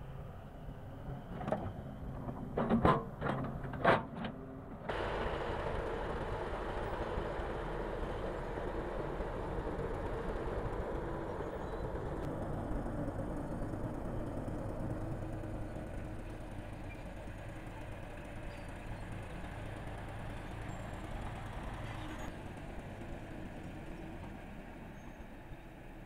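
A Doosan DX140W wheeled excavator digging rocky soil, its bucket knocking sharply against stones several times. Then a Caterpillar crawler bulldozer runs steadily under load, pushing a pile of dirt with its blade, its engine and tracks making a continuous rumble.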